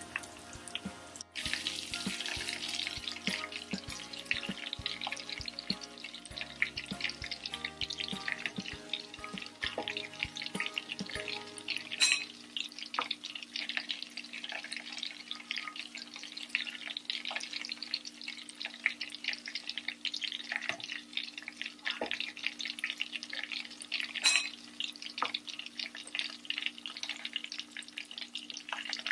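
Prawn balls deep-frying in hot oil: a steady crackling sizzle with many small pops.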